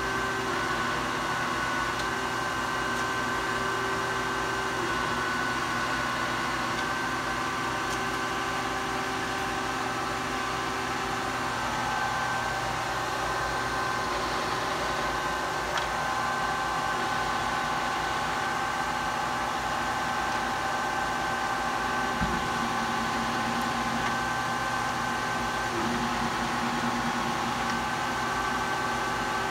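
Kearney & Trecker 205 S-12 horizontal milling machine running with its spindle turning: a steady motor and gear hum with several held tones that shift slightly in pitch a few times.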